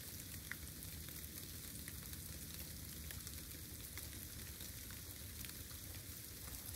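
Steady rain falling: an even, fine hiss dotted with many small drop ticks, over a low steady rumble.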